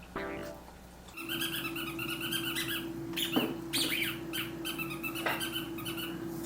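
A poodle making soft, wavering vocal sounds, with a few sharp clicks, over a steady low hum that starts about a second in.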